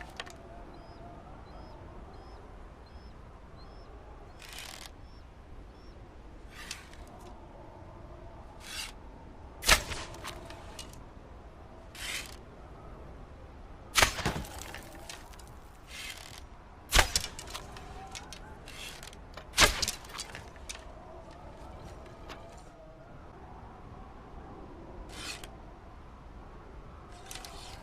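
Bow and arrow shots: about ten sharp, short snaps spread irregularly through the clip, four of them much louder than the others.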